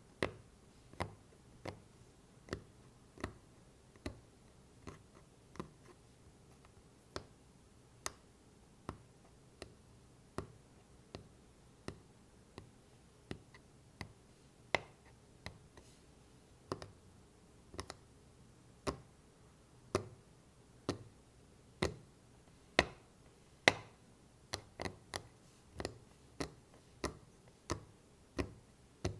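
Tapping on a wooden block: single sharp taps at a slow, uneven pace of about one or two a second, with a quicker run of taps near the end.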